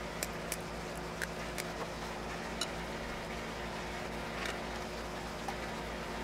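A few light, scattered clicks and taps as a small RF amplifier circuit board with an SMA connector is handled and clamped into a PCB vise, over a steady low hum.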